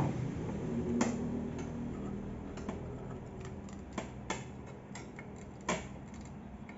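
Light clicks and knocks of parts being handled and fitted together while assembling a belt sander: a few separate taps, the loudest near the end, over a faint steady background.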